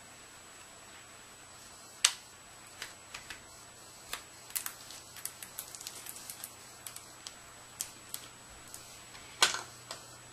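Scattered clicks and taps of laptop parts being handled and fitted during a screen replacement: a sharp click about two seconds in, a busy run of small clicks in the middle, and another loud click near the end.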